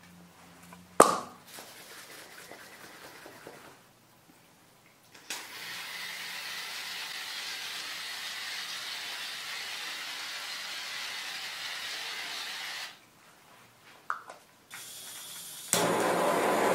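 Aerosol can of shaving foam spraying foam out in a steady hiss for about seven seconds, after a sharp click about a second in. Near the end a handheld gas torch comes on and burns with a louder steady rush.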